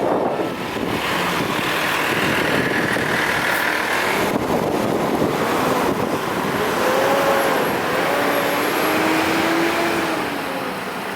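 Road vehicle noise: a steady rush of engines and tyres. In the second half a few faint tones waver up and down.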